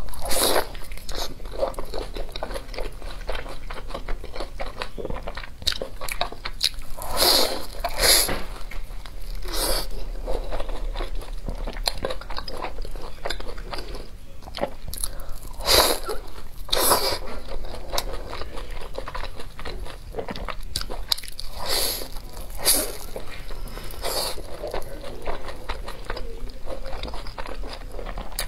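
Crunching bites into the crisp fried crust of a chive-and-egg pancake, with chewing between them; a few bites stand out as sharp loud crunches.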